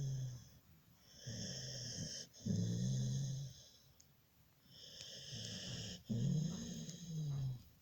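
A sleeping dog snoring in slow, regular breaths, about one every three and a half seconds: low pitched snores alternate with high whistling breaths.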